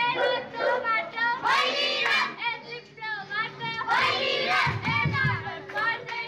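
Children singing a Deusi-Bhailo Tihar song together in short phrases, with a steady held tone under the singing in the second half.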